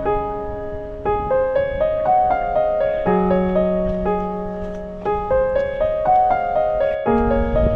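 Background music: a gentle piano melody, single notes struck at an unhurried pace over held low bass notes.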